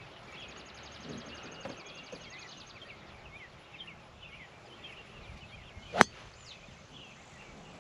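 Birds chirping, with a fast high trill in the first few seconds. About six seconds in, a single sharp crack of a golf club striking the ball: a slightly mishit shot, not the player's best strike.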